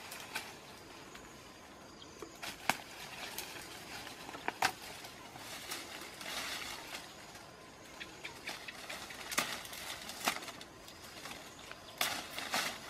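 Leaves and dry twigs rustling and crackling as a person pushes through dense brush and pulls at leafy branches, with sharp twig snaps now and then and a quick cluster of snaps near the end.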